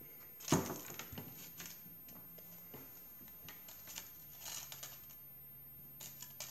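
Foil wrapper crinkling, with scattered small clicks and rustles as a chocolate egg is handled and broken open by hand; the sharpest click comes about half a second in.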